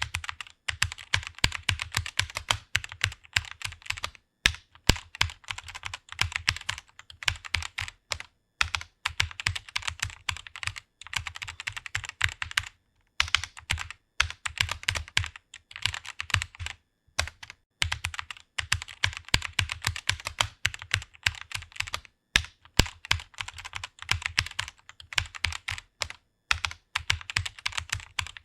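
Computer keyboard being typed on rapidly: a fast, continuous patter of key clicks, with brief pauses every few seconds.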